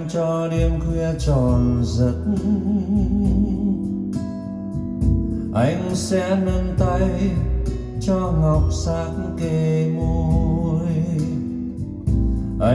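A slow ballad: a melody line with vibrato over deep, sustained bass, with a new phrase starting about six seconds in.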